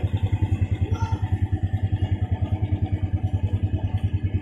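Honda Astrea Legenda 2's 96 cc single-cylinder four-stroke engine idling, a steady even putter of roughly eleven beats a second.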